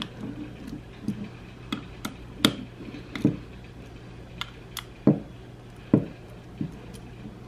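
Hand hex screwdriver tightening the small M3 screws of a Bitspower D5 pump housing: scattered light clicks and taps of the bit seating in the screw heads and the tool knocking the housing, irregular and a second or so apart, over a faint steady hum.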